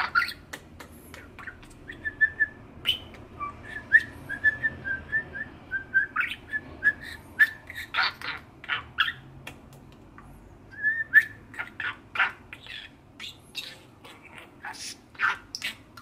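A male budgerigar calling: loud, sharp squawks scattered throughout, with quick runs of small chirping notes a couple of seconds in and again a little past the middle.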